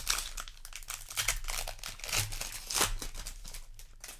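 Crinkling and rustling of a foil booster pack wrapper being handled, with many short irregular crackles.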